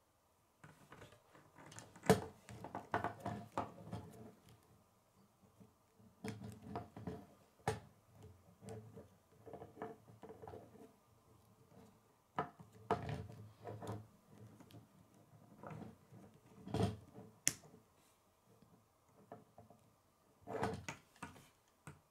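Plastic K'nex rods and connectors clicking, creaking and knocking as the model is handled and turned in the hand, with knocks as it touches a wooden table. The clicks and knocks come irregularly, with the sharpest ones about 2 s, 7.5 s and 17 s in.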